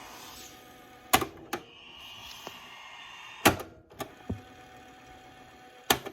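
Controls of a Sharp GF 8787 boombox being worked: about six separate mechanical clicks and clunks, spaced irregularly, over a faint steady hiss.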